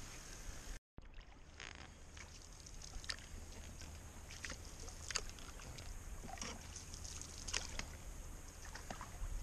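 Wooden canoe being paddled on calm water: faint paddle-stroke sounds, with small drips, splashes and ticks every second or so.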